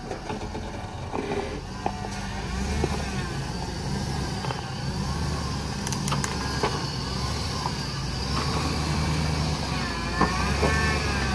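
Chevrolet Suburban's engine working under load on a muddy, rocky hill climb, its revs rising and falling and getting louder about two seconds in, with a few sharp knocks and clicks.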